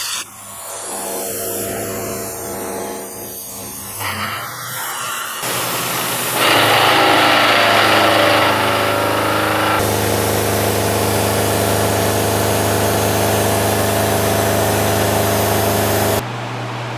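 Milling machine running as the cutter takes a pass across a vise jaw, with a louder, harsher cutting stretch a few seconds in. The sound jumps abruptly several times.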